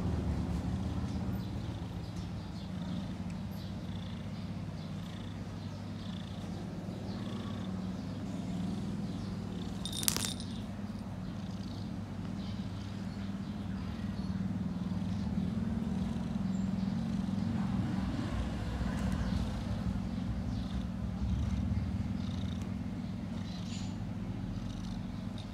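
Kitten purring steadily, a low continuous rumble, with a single sharp click about ten seconds in.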